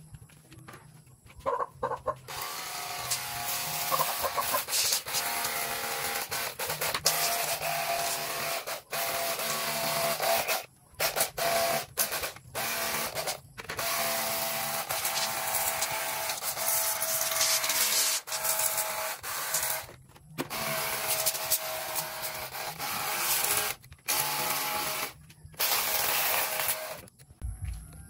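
Cordless pressure washer spraying a jet of water onto the plastic casing of a window air conditioner: a loud hiss with a steady motor whine. It cuts out briefly several times as the trigger is let go.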